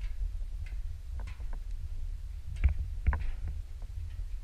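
Low rumble of wind and handling noise on a handheld camera's microphone while walking a rocky trail, with a few light clicks and two sharper knocks about two and a half and three seconds in.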